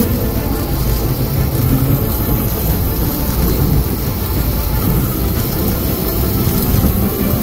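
Custom-built 52 V electric mini dirt bike being ridden along tarmac: a steady low rumble of wind and tyre noise, with no engine note.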